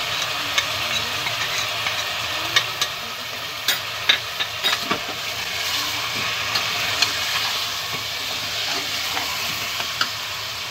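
Mutton sizzling in hot oil in an aluminium pressure cooker as a steel ladle stirs in ground spices, with sharp clinks and scrapes of the ladle against the pot now and then. This is meat being browned with masala, the bhuna stage.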